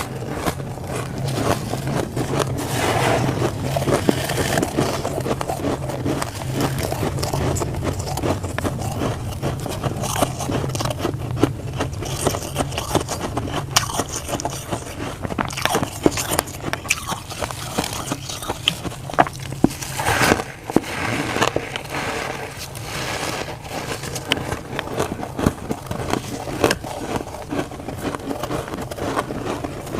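Crunchy humidifier frost being bitten and chewed close to the microphone: a dense, continuous run of crackles and scrapes.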